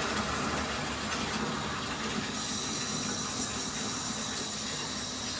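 Water running from a bathtub faucet into a filling tub, a steady rush; about two seconds in its sound shifts as the tap is turned.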